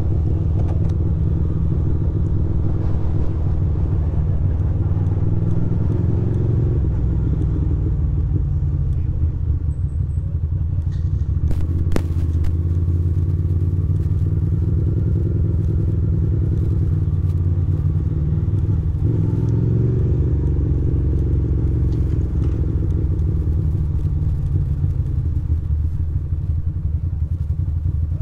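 2006 Ducati Monster 620's air-cooled L-twin engine running at low revs through a slow ride, its note rising and falling gently with the throttle. A single sharp click about twelve seconds in.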